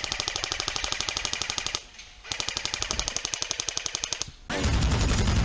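Airsoft electric gun firing two full-auto bursts of rapid, even clicks, each about two seconds long with a short pause between. About four and a half seconds in, a louder, rougher noise sets in.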